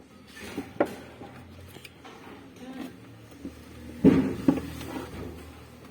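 Light clatter and knocks of parts and tools being handled during a washing machine repair: a sharp knock just before a second in, and a louder cluster of knocks about four seconds in.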